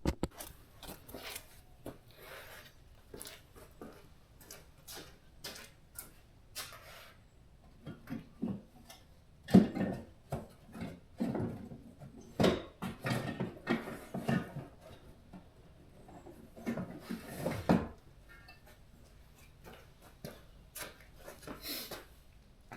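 Scattered handling noises: light knocks, rubs and rustles, coming thicker and louder in the middle.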